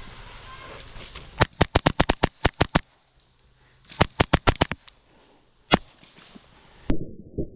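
HPA-powered Novritsch SSP5 airsoft pistol firing rapid strings of sharp shots: about ten in quick succession, a short pause, about eight more, then a few single shots.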